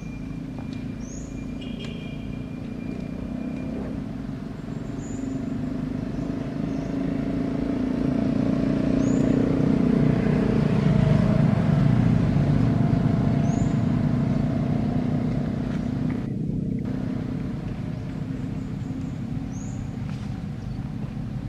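Low rumble of a passing motor vehicle, swelling to its loudest about halfway through and fading again.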